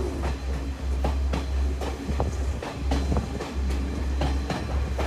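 Podi Menike passenger train running along the track: a steady deep rumble with wheels clattering over rail joints, about two to three clacks a second, and a few brief squeaks.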